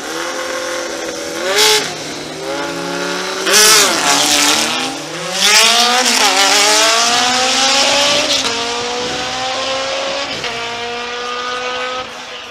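Two drag-racing motorcycles revving at the start line, then launching and accelerating hard down the strip, their engine notes climbing and dropping back at each upshift as they grow fainter.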